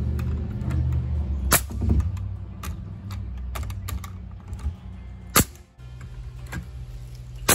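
Pneumatic framing nailer firing three sharp shots, about 1.5, 5.4 and 7.5 seconds in, among lighter knocks of lumber, over a low steady hum.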